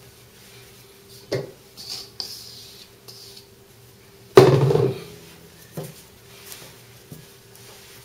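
Hands kneading a large mass of bread-flour dough on a wooden board: scattered knocks and soft rustles, with one loud thump about four and a half seconds in. A steady low hum runs beneath.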